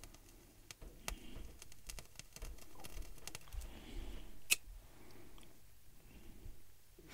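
Faint crackling with scattered small clicks and pops, one sharper pop about four and a half seconds in, from water-soaked cotton wool with Vaseline held in a small flame, still damp and slow to catch.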